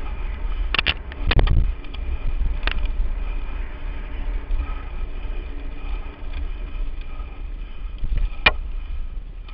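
A Lapierre Spicy 516 full-suspension mountain bike descending a rough dirt trail, heard from a camera on the rider: a steady low rumble of the ride with sharp rattles and clacks from chain and frame over bumps, a cluster of them about a second in and the loudest one near the end.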